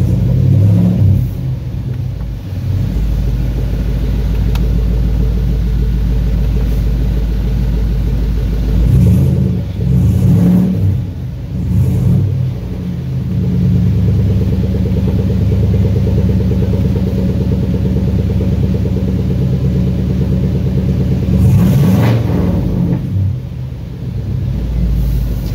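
A car engine running at idle with a steady low rumble that shifts in pitch and level a couple of times.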